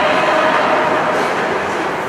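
Steady, noisy din of an ice hockey game in play: skates on the ice of an indoor rink, with no single sound standing out.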